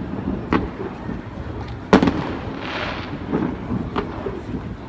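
Aerial fireworks shells bursting: a sharp bang about half a second in and a louder one about two seconds in, followed by lighter pops.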